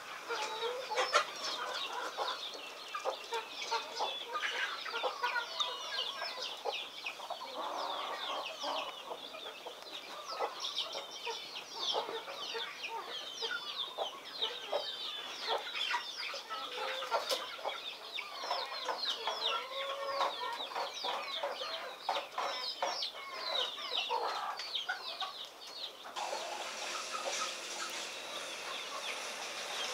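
Chickens clucking with a busy, continuous chatter of short, high chirps.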